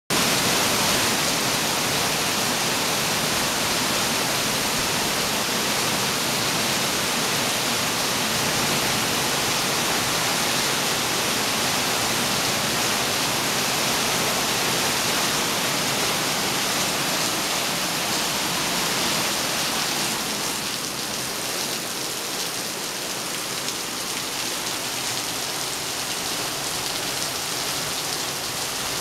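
Heavy rain pouring down, a steady hiss that eases slightly about two-thirds of the way through.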